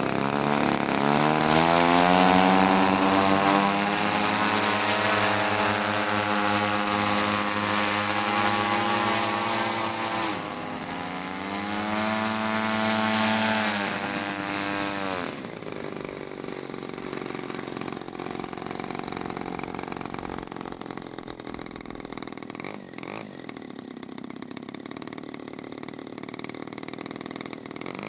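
Piston engine of a large-scale RC warbird model running up: its pitch rises over the first two seconds and holds, dips near ten seconds, climbs again, then drops away around fourteen seconds. After that, engines run more quietly at low throttle.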